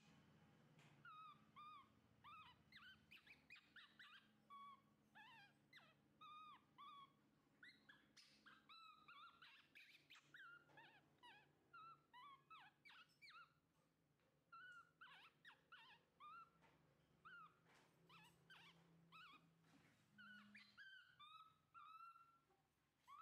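Baby macaque whimpering softly: a stream of short, high squeaky calls that dip and rise in pitch, several a second, over a faint steady low hum.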